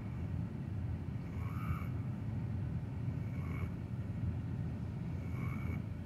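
Weimaraner snoring in its sleep: a short whistling nasal snore on each breath, about every two seconds, over a steady low rumble.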